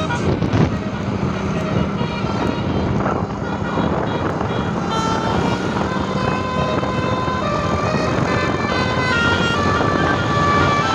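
Basuri telolet multi-tone bus horn playing a melody of held notes that change pitch every second or so, over a steady rumbling background.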